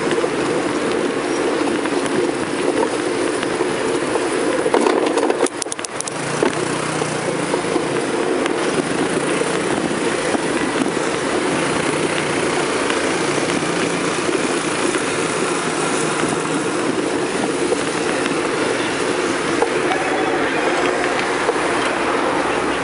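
Steady rushing and rumbling noise of riding a bicycle along a street: wind on the microphone and tyres on the road, with a brief dip about six seconds in.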